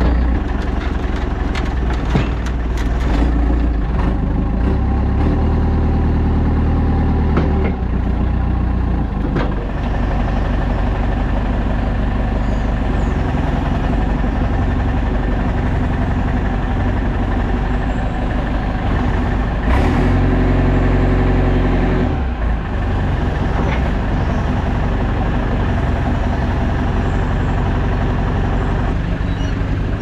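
Farm machinery engines running steadily. The revs rise and fall a few times in the first several seconds and again about two-thirds of the way through, with a few clanks of metal early on.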